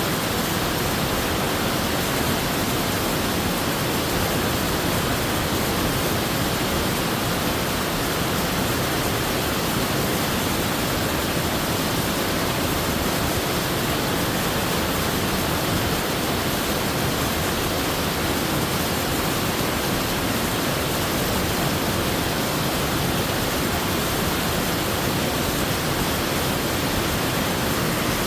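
Waterfall pouring steadily into a mountain stream pool: a constant, even rush of falling water with no breaks.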